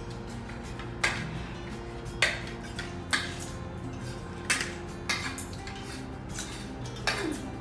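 Spoons and forks clinking and scraping against plates and bowls as several people eat, with about six sharp clinks at irregular intervals.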